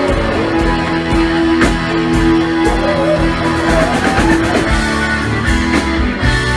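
Live rock band playing: an electric guitar holds long, bending lead notes over drum kit, bass guitar and keyboard.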